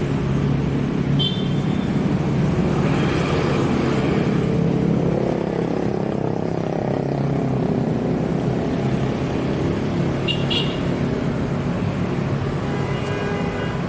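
Road traffic: car engines running in a steady low rumble, with two short high-pitched chirps about a second in and about ten seconds in.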